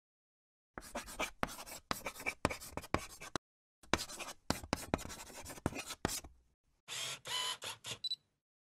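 Pen writing on paper: quick scratching strokes in three spells with short pauses between them, the last spell shorter.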